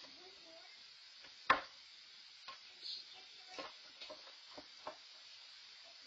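A sharp knock about a second and a half in, then several lighter clicks and knocks as a child handles toys, over a steady hiss from the security camera's microphone.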